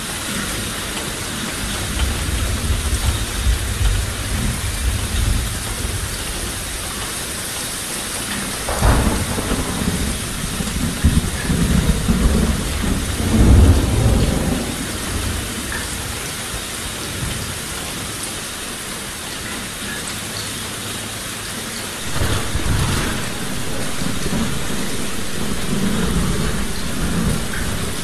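Sound-designed heavy rain: a steady hiss of downpour, with low thunder rumbles rolling in several times. One starts suddenly about a third of the way in and swells to the loudest point just before the middle, and another comes in near the end.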